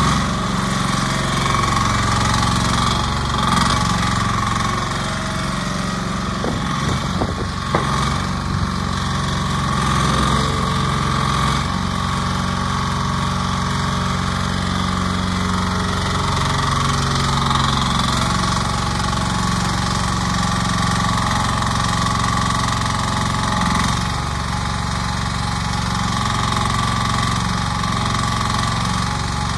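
RDT 10A mini excavator's small engine running steadily under the operator's control, its note shifting a few times as the boom, bucket and blade are worked and the machine turns. There are a few short knocks about seven seconds in.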